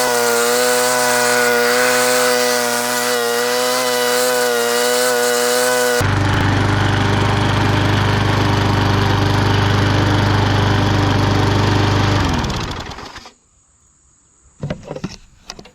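Bolens push mower's single-cylinder Briggs & Stratton 500 series engine running and cutting grass, its note wavering in the first few seconds. About twelve seconds in the engine is shut off and winds down to a stop within a second, followed by a few light knocks.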